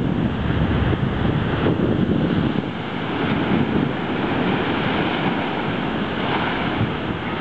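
Rough sea surf breaking and washing over a concrete shore edge, a steady rushing noise, with wind rumbling on the microphone, heaviest in the first two or three seconds. Another wave breaks about six seconds in.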